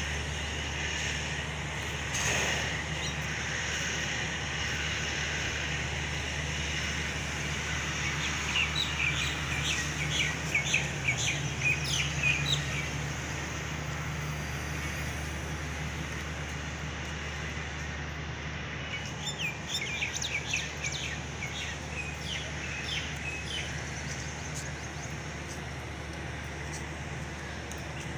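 Small birds chirping and twittering in two spells of quick, high calls, over a steady low background hum.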